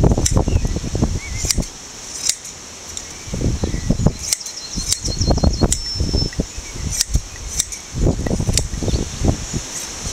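Hand blade shears snipping through a Shetland sheep's fleece: sharp clicks at uneven intervals, about one a second. Wind gusts rumble on the microphone throughout.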